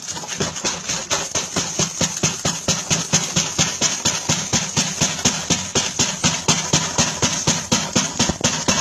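Metal coins dropping out of a gap in a door one after another onto a heap of coins: a fast, steady run of bright clinks, several a second.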